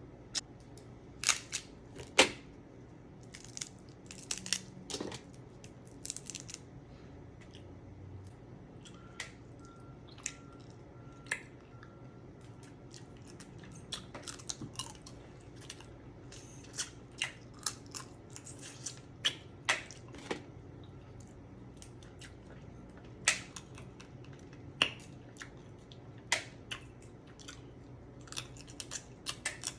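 Blue crab being cracked and picked apart by hand: irregular sharp cracks and clicks of shell breaking, with chewing in between.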